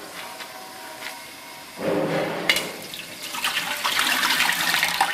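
Water poured off a bowl of sliced bitter gourd into a steel sink, splashing. It starts softly after faint small sounds of hands in the water and is loudest over the last two seconds, the wash water being drained to clear off dust and grit.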